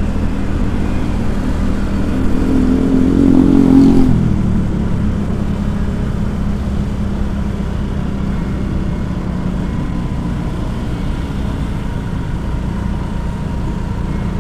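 Motor vehicle engine running with road noise, a steady drone that swells loudest about three seconds in and then settles back.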